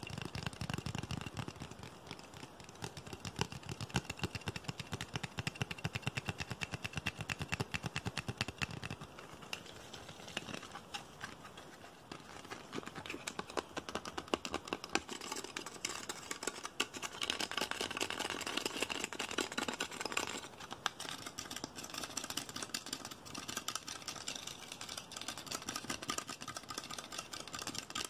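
Fingernails tapping and scratching fast on a flexible pink plastic piece, a dense run of quick clicks. The sound is fuller and lower in the first nine seconds or so.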